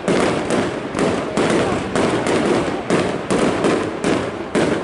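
Fireworks display firing a rapid salvo of shots: sharp bangs about two or three a second, each ringing out briefly, as green stars and silver comet trails go up.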